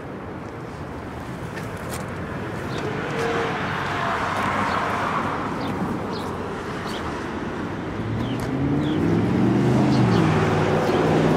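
City street traffic: a passing car's tyre noise swells and fades about four to six seconds in, then a heavier vehicle's engine hum builds and is loudest near the end.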